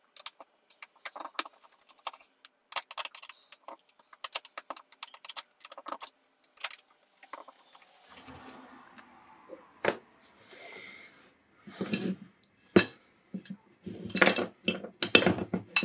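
Small metallic clicks and scrapes of a precision screwdriver working screws out of a steel bracket inside an opened hard drive, with light clinking of the loose metal parts. Several louder knocks come near the end as the bracket and drive are handled.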